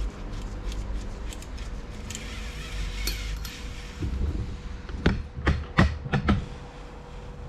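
Metal tools and bicycle parts clinking and clattering during hands-on repair work, with a quick run of about five sharp knocks about five seconds in.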